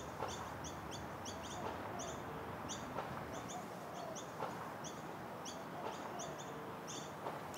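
Small birds chirping: short, high chirps repeating about two or three a second over a steady outdoor hiss.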